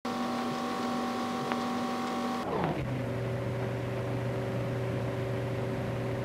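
Steady machine-like hum on an early sound-on-film recording, several tones at once. About two and a half seconds in, it glides down in pitch and settles into a lower steady hum.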